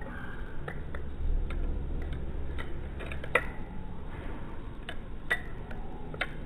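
Balisong (butterfly knife) being flipped through a rollover loop, its handles and blade clicking against each other in about ten irregular sharp clicks.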